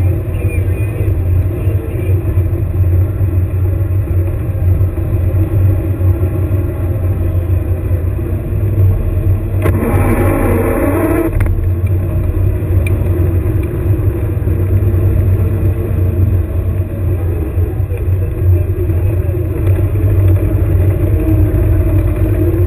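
Engine of an airsoft combat vehicle running steadily as the vehicle drives, a loud low drone close to the mounted camera. About ten seconds in comes a louder surge lasting over a second that rises in pitch.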